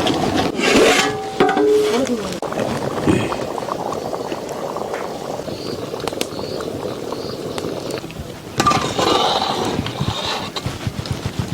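Indistinct voices talking over the scraping and liquid sounds of a pot of chicken and mushroom gravy as it cooks.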